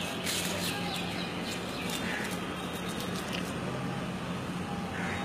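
A few short, high-pitched squeaks and yelps from puppies play-fighting, over a steady low hum of street background noise.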